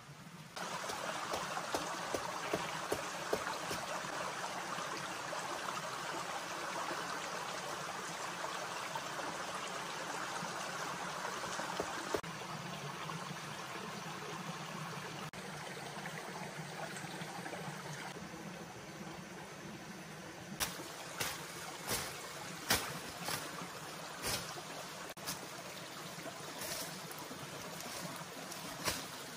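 Steady rushing of running water, like a forest stream, with several sharp cracks or knocks in the last third, the loudest about three quarters of the way through.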